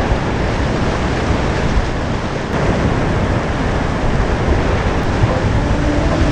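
Loud, steady rushing of flowing water, heavy and low like floodwater.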